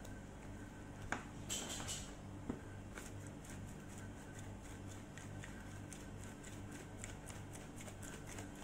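Faint kitchen handling noises while raw chicken is seasoned on a metal baking tray: a couple of clicks and a short rattle about a second and a half in, then light irregular ticking, over a low steady hum.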